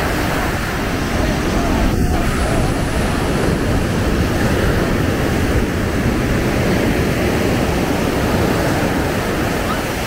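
Ocean surf breaking and washing up the sand at the water's edge: a steady rush of waves.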